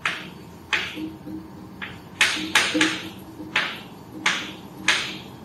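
Chalk on a blackboard as a word is written: about eight short, sharp scratching taps at an uneven pace.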